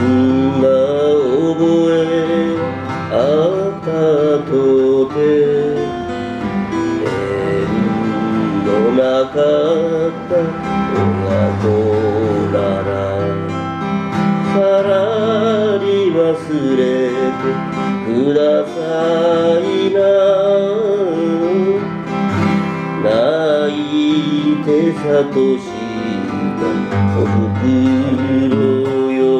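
A man singing a Shōwa-era Japanese kayōkyoku song, accompanying himself on a strummed Morris acoustic guitar.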